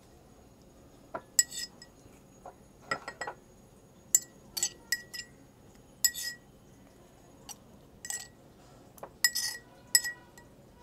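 A metal spoon clinking and scraping against a stainless-steel mortar while crushed mint paste is scraped out of it. The clinks come about a dozen times at irregular intervals, each sharp and briefly ringing.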